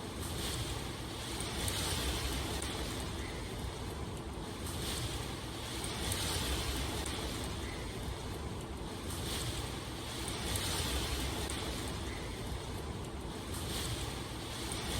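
Steady rushing water ambience with a low rumble underneath. The hiss swells and eases every few seconds.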